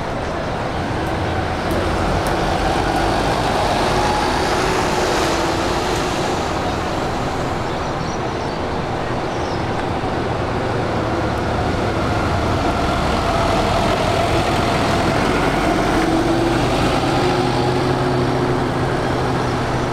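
Bus engines running as shuttle buses move through the stop, a steady rumble with a whining tone that swells twice.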